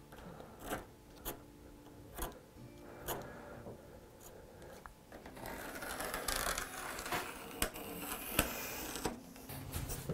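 Light clicks and taps of a tape measure and pencil being handled against a red oak board. About five and a half seconds in, a denser scratching sets in as a pencil is drawn along the board's edge to mark a line.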